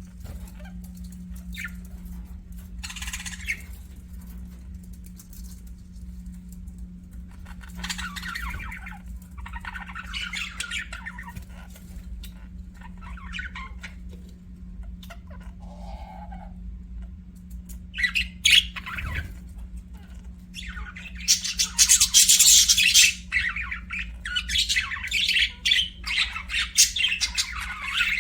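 Budgerigars chirping and squawking: a few scattered calls at first, building to loud, dense chattering about two-thirds of the way through. A steady low hum runs underneath.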